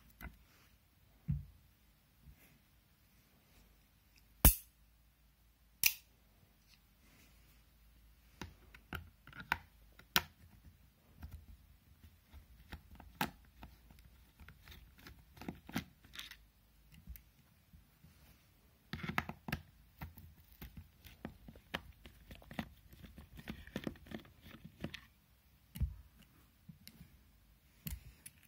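Irregular small clicks, taps and scrapes of an Amazon Basics speaker being taken apart by hand: its metal grille is worked off, then a screwdriver works at the driver screws. Two sharp, loud clicks come about four and six seconds in.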